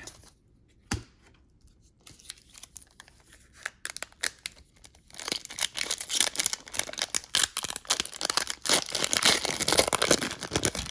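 Trading-card pack wrapper being torn open and crinkled by hand, a crackly rustling that grows busier and louder from about five seconds in, after a single sharp click about a second in.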